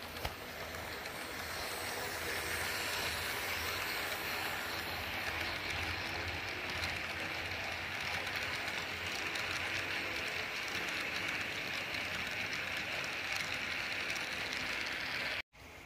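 Frateschi HO-scale model train, a diesel locomotive pulling tank cars, running past close by: a steady whir of motor and wheels on the rails with faint clicking. It grows louder over the first couple of seconds as the train comes near.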